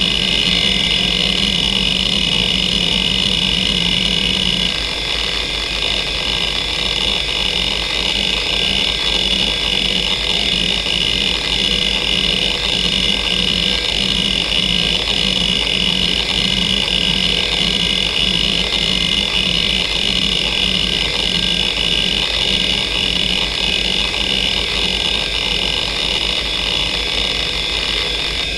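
Western Digital Caviar 2340 340 MB IDE hard drive spinning with a steady high whine while its heads seek back and forth under a head-movement test, the actuator clattering continuously. About five seconds in, the low seek noise changes from a continuous drone to a rapid, regular pulsing as the sweep pattern changes.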